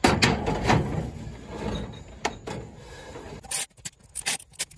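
Ratchet wrench with a swivel socket working the intake/exhaust manifold bolts on a Dodge slant-six. A loud handling clatter runs over the first second or so, then quick ratchet clicks come about five a second near the end.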